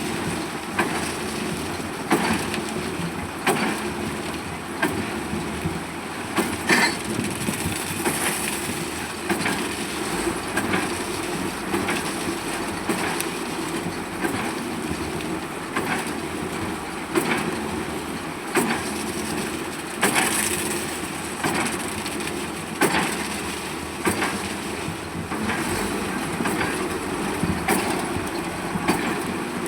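Concrete being poured for a pile foundation: a steady machine drone with irregular knocks and clatters, about one or two a second.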